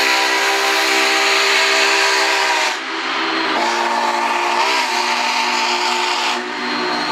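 Union Pacific 844 steam locomotive's chime whistle sounding two long blasts, the second starting about three and a half seconds in, over a steady hiss. Two long blasts is the railroad signal that the train is starting to move.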